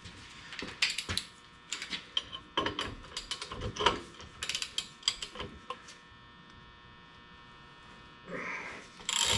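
Hand ratchet clicking and metal tools clinking in short irregular bursts on a Mopar 8.25 rear axle, during adjustment of the differential's backlash. The last few seconds are quieter, with a single sharp click near the end.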